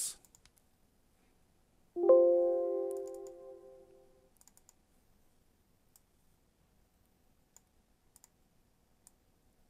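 A single electronic notification chime from the computer, several tones at once, sounding about two seconds in and dying away over about two seconds, followed by a few faint mouse clicks.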